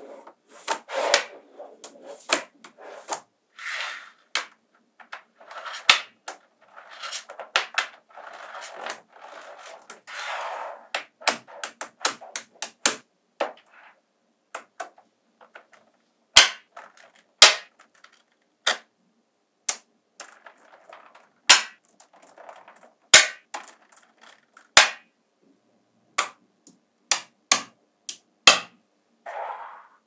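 Small magnetic balls snapping together in sharp clicks at uneven spacing. In the first third these come between softer rattling stretches, as clusters of balls are handled and shifted.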